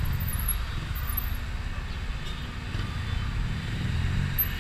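Motorcycle engine running at low speed: a steady low rumble.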